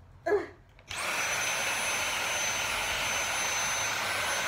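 Dyson cordless stick vacuum switched on about a second in, then running steadily: a loud rush of suction with a high motor whine over it.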